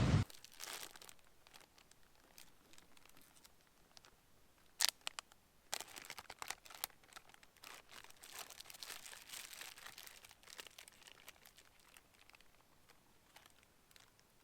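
Crinkly packaging being handled and opened: a few sharp clicks about five seconds in, then a long stretch of irregular crinkling and rustling.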